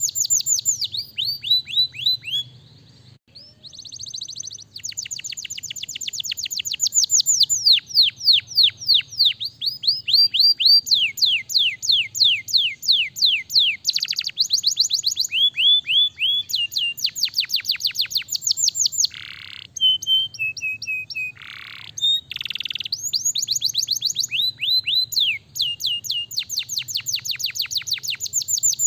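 Domestic canary singing a long song of rapid trills, each roll a fast run of falling notes, with the speed and pitch changing from phrase to phrase. There is a short break about three seconds in, and a few harsher, buzzier notes about two-thirds of the way through.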